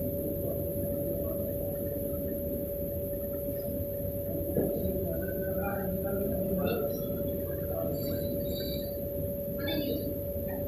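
Paper log saw cutting machine running: a steady hum with a constant high-pitched tone over a low rumble.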